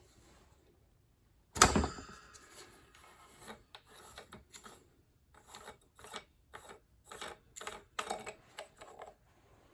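A sharp knock about a second and a half in, then a string of short, irregular scraping and clicking sounds: parts of a table fan being handled and taken apart by hand.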